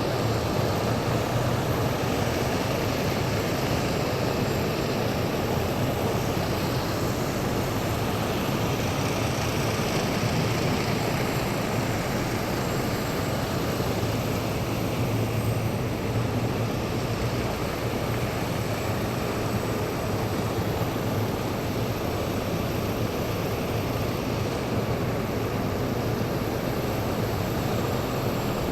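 A column of heavy military vehicles driving past, their engines making a steady low rumble mixed with tyre and road noise, with no break or change in level.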